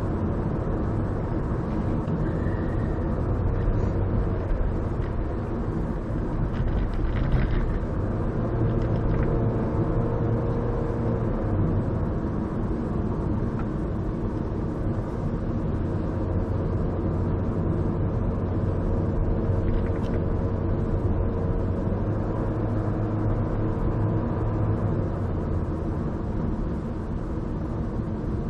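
Car road noise heard from inside the cabin while driving through town streets: a steady low rumble of engine and tyres, with an engine hum that comes and goes.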